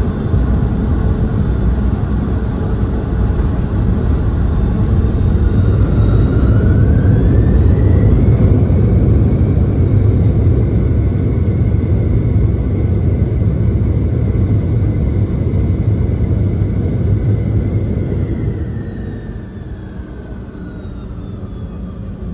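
Inside the cabin of a Boeing 717-200 on its landing rollout, a steady heavy rumble of the wheels on the runway. About six seconds in, the rear-mounted Rolls-Royce BR715 jet engines spool up into reverse thrust with a rising whine and get louder. They hold for about ten seconds, then spool down with a falling whine as the aircraft slows.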